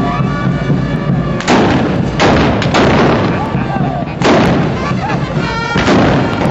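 Black-powder rifles firing gunpowder charges: about five loud shots, the first about a second and a half in, each trailing off in a rumble.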